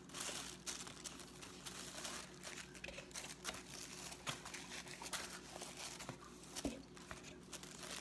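Faint, irregular crinkling of thin tissue paper as it is handled and pressed onto a glue-covered paper plate.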